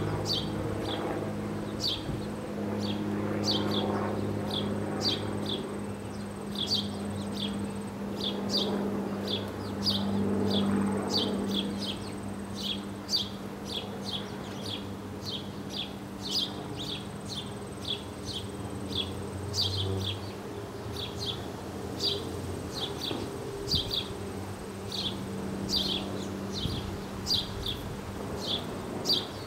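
A bird repeating a short, high, falling chirp about twice a second, over a steady low hum.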